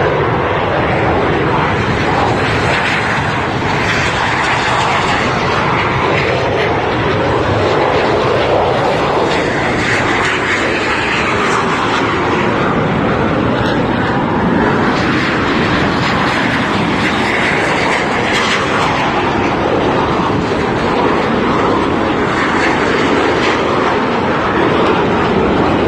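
Fixed-wing airplane engine running loud and steady, its tone slowly rising and falling as the aircraft flies.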